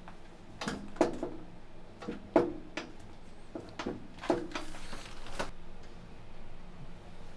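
A moulded plastic chair knocking and clunking in a string of sharp knocks over the first five seconds as it is pushed and tugged by hand. It is fixed to the floor and does not move.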